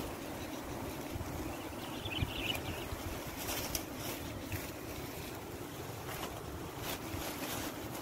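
Wind blowing across the microphone: a steady rush with uneven low buffeting. There is a short, faint high chirp about two seconds in.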